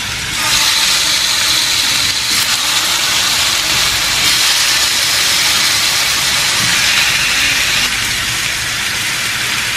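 Yogurt-marinated chicken tikka skewers sizzling steadily on a hot grill pan as they are laid down.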